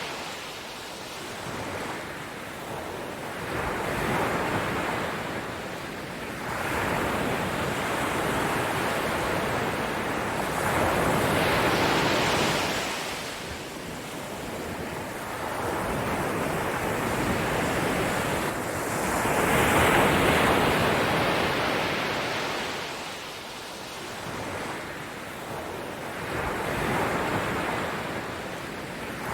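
Ocean surf washing in and receding, a steady rush that swells and fades in slow waves every several seconds, the loudest swell about two-thirds of the way through.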